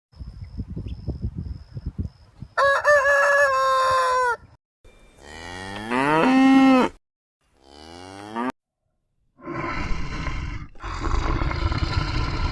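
A string of separate farm animal calls edited one after another, including a rooster crowing and cattle mooing. Each call is a few seconds long, and a rougher, noisier call fills the last few seconds.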